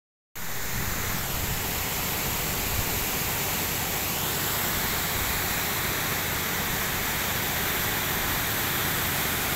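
Shallow river running over rocks: a steady rush of flowing water with a low rumble underneath.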